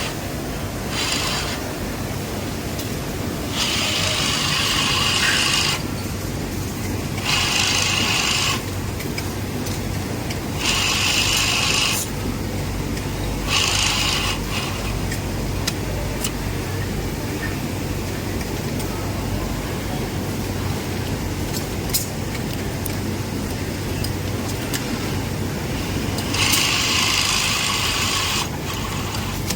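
Industrial sewing machine: a steady low motor hum with short runs of stitching, about six in all, each lasting about one to two seconds, with gaps between them.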